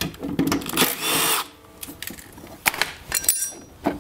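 Milwaukee cordless driver spinning a socket in short bursts, undoing the bolts of a cover on a mower engine, followed by metal clinks of the socket and parts being handled near the end.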